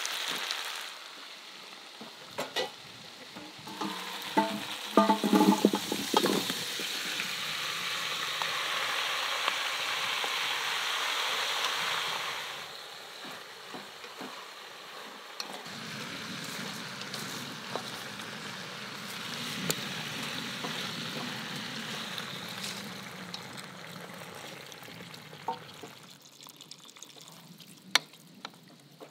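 Meat and vegetables sizzling in enamel cookware on a wood-burning stove, stirred with a wooden spatula. A run of clinks from the enamel pots comes about four to six seconds in. The sizzle is loudest in the first half and drops to a quieter hiss after about thirteen seconds.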